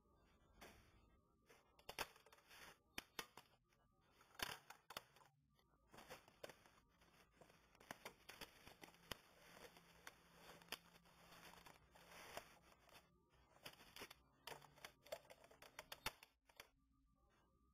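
Faint, irregular clicks and rattles from a cab EOS1 label printer being worked, denser in the middle.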